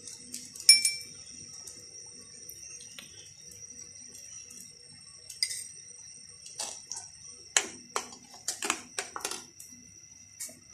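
A metal spoon clinks sharply once against a small bowl, with a lighter clink a few seconds later. Then comes a quick run of knocks and taps as a plastic milk bottle and utensils are handled beside the pan. A faint steady high-pitched whine runs underneath.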